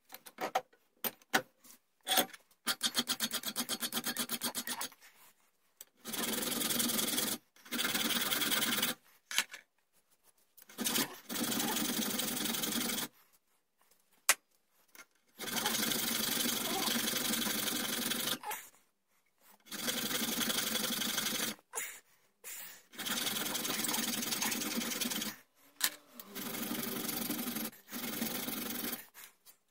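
Hand file rasping back and forth on a small steel rear-sight blank clamped in a bench vise, in runs of quick strokes a few seconds long broken by short pauses. A few sharp clicks sound in the first two seconds as the piece is set in the vise.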